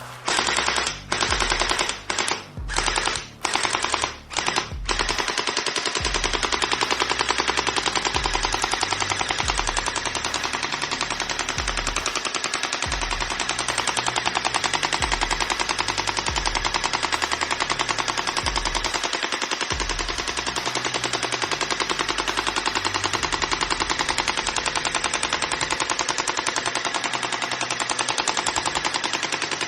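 Automatic-rifle gunfire sound effect from a toy gun set: several short rapid bursts, then about a second in from the fifth second a long unbroken stream of fast fire that stops suddenly at the end.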